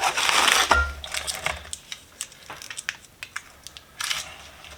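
Packing material crinkling and rustling as it is pulled around in a cardboard box, with a short metallic clink ringing briefly just under a second in and a few small clicks of tools being handled.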